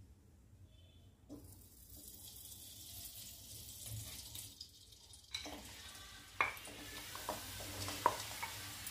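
Ghee sizzling faintly in a hot steel kadhai. About five seconds in the sizzle turns louder as jaggery lumps go into the pan, with a few sharp clicks and knocks, the loudest near the end.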